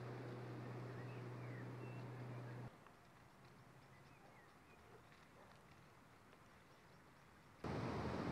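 Outdoor ambience by open water: a steady low hum at first, then a quieter stretch with faint short bird-like chirps, then a sudden jump to louder rushing, wind-like noise near the end.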